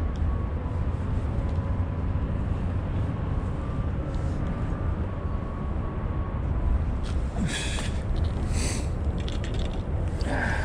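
Steady low outdoor rumble of wind and city background, with two short hissing bursts about seven and a half and eight and a half seconds in.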